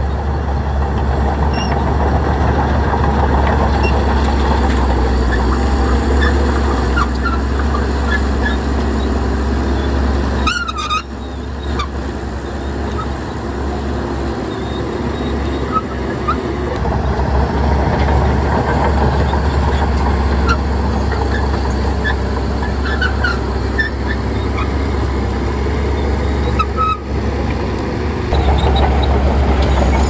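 Heavy diesel earthmoving machinery running, a steady deep engine rumble with scattered short high squeaks. The sound drops away briefly about ten seconds in and again near the end.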